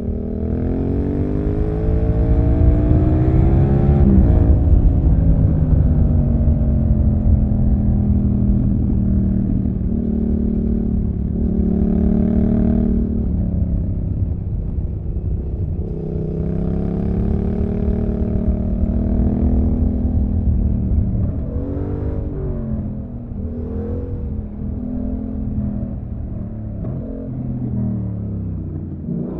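Yamaha MT-07's parallel-twin engine with an SC-Project exhaust, heard from the rider's seat under way. It pulls up through the revs, dropping in pitch at each gear change, with short throttle rises and falls about three-quarters of the way through, over a low rush of wind and road noise.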